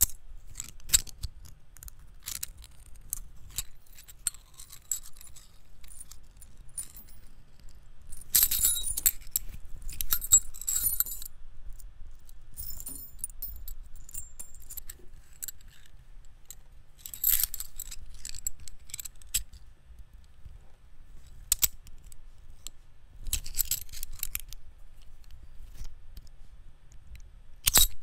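Thin metal wire of a wire sculpture jingling, clicking and scraping in scattered bursts, with denser clusters about a third of the way in, just past halfway and near the end, over a faint low rumble.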